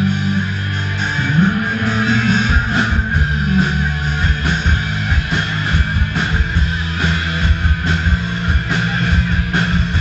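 Rock band playing live: electric guitars strummed over bass and drums, loud and steady, with a regular beat.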